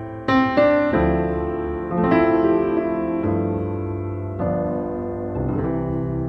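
Background piano music: slow, sustained chords and notes, a new one struck every second or so.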